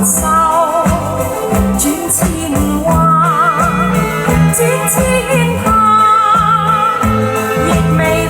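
Music: a Cantonese ballad with orchestral backing and long-held, wavering melody notes between sung lines.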